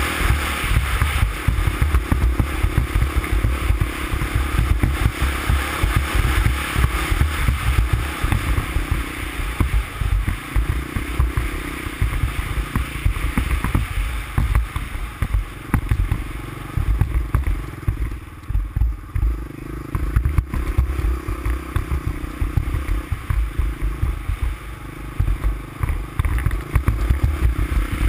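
350X ATV engine running as it rides along a snow trail, the throttle rising and falling, easing off briefly about two-thirds of the way through.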